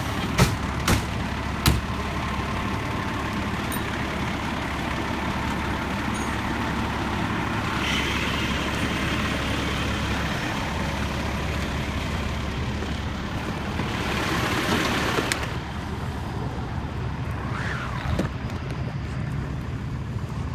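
Fire engine running steadily with a low rumble, with a few sharp clicks near the start and a louder rushing hiss about fourteen seconds in.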